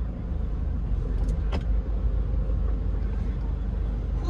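Steady low rumble of a car's engine and road noise heard from inside the cabin while driving in traffic, with a single sharp click about a second and a half in.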